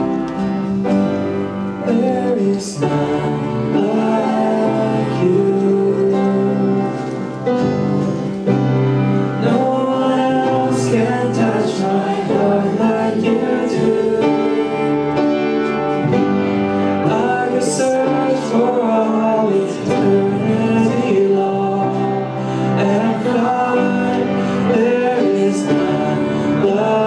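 Church worship band playing a slow song, with guitar, sustained chords and a melody line.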